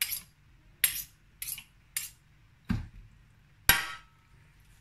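Metal kitchen utensils, a spoon and an immersion blender's shaft, knocking against a stainless steel saucepan about six times, the loudest knock near the end ringing briefly. The blender is not yet running.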